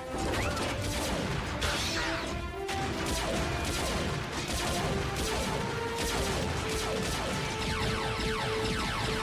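Animated-series action scene soundtrack: a dramatic music score with dense crashes and blaster-like shots and whooshes over it.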